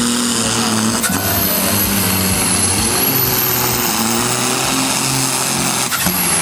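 Diesel engine of a 3500 kg class pulling tractor running flat out under heavy load as it drags a weight-transfer sled, a loud, steady drone that wavers a little in pitch.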